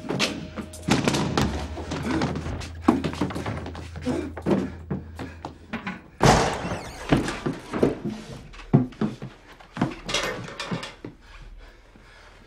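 A rapid, irregular series of thuds and knocks, the loudest about six seconds in; they thin out near the end.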